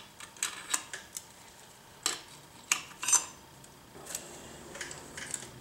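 Clutch steel plates and friction discs clinking against each other and the clutch hub as they are slid on one at a time: a handful of irregular light metallic clicks and taps.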